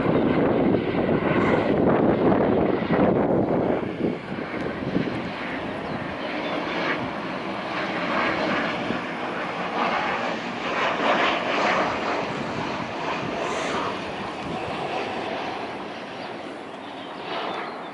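Airliner's engines rumbling past close by, loudest in the first few seconds, then gradually fading.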